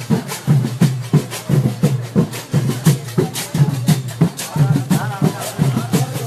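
Kavadi drumming: drums beating a fast, steady rhythm with several strikes each second.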